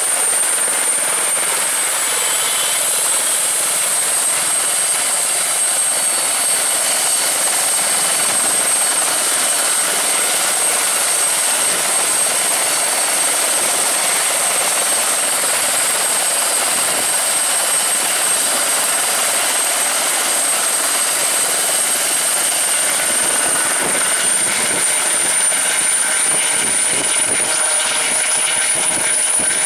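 Airbus EC120B Colibri helicopter running on the ground, its Turbomeca Arrius 2F turboshaft engine and main rotor turning: a steady high turbine whine over the dense rotor and exhaust noise. The whine dips slightly about two seconds in and rises a little in pitch toward the end.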